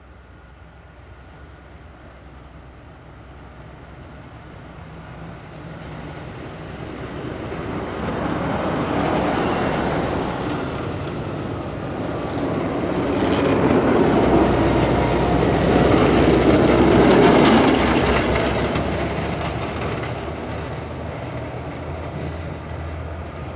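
Snow plow tractors driving past, steel plow blades scraping along the snow-covered road over a steady low engine drone. The grinding rush builds to a loud peak about nine seconds in and a louder one around seventeen seconds as each plow passes close, then fades.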